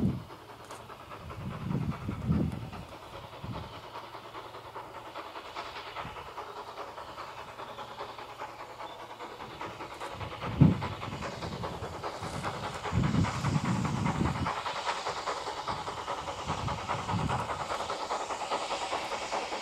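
Wind buffeting the microphone in irregular low thumps, over a steady distant rumble that grows slowly louder as a steam tank locomotive approaches unseen.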